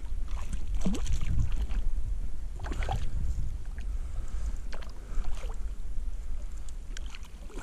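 Water splashing and sloshing in shallow lake water as a hooked grayling is drawn into a landing net, in short irregular splashes over a low rumble.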